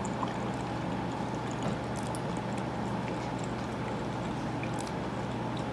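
Steady background hum and hiss, with a few faint clicks.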